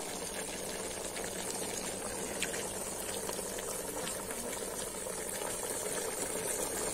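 Pot of duck meat boiling and bubbling: a steady hiss with scattered small pops.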